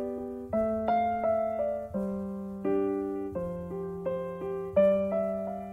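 Background piano music: a gentle melody over sustained chords, with a new note struck every half second or so.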